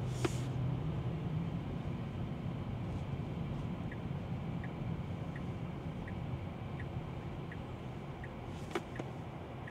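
Inside the cabin of a 2024 Tesla Model 3 pulling away, with steady road and tyre noise. From about four seconds in, the turn signal ticks evenly, roughly once every 0.7 seconds.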